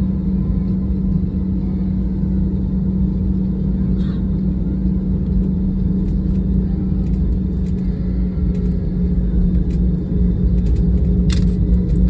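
Airliner jet engines heard from inside the passenger cabin: a steady low rumble with a constant hum over it. A few light rattles, with one sharper click about eleven seconds in.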